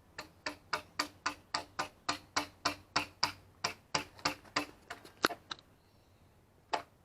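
A rapid, even series of sharp clicks, about three or four a second for some five seconds, then a pause and two more clicks near the end.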